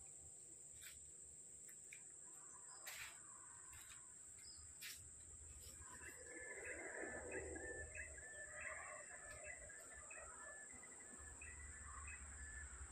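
Faint rural ambience: insects keep up a steady high-pitched drone, with a few soft clicks early on, and birds chirp in short repeated notes from about six seconds in.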